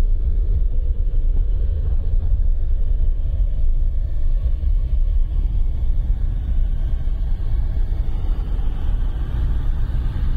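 A deep, steady rumble that fills the low end without letting up, with no distinct blasts or impacts standing out.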